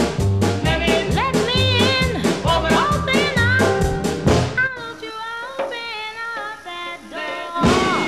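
Upbeat background music with a steady drum beat and a melody; about halfway through the drums drop out for a quieter passage, and the full beat comes back near the end.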